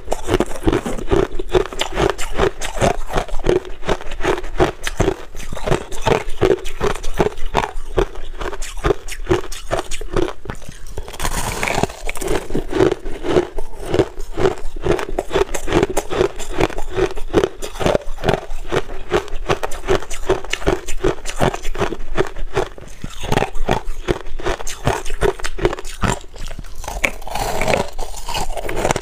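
Crushed ice being bitten and chewed, with dense, rapid crunches and a couple of brief lulls, along with fingers scraping through loose crushed ice in a tray.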